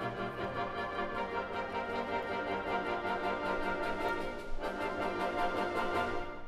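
High school concert band playing held chords on brass and woodwinds, the harmony shifting about two-thirds of the way through.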